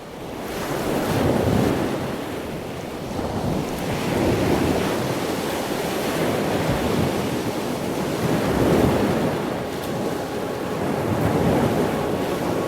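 Ocean surf rolling in, its roar swelling and easing every few seconds, with wind buffeting the microphone.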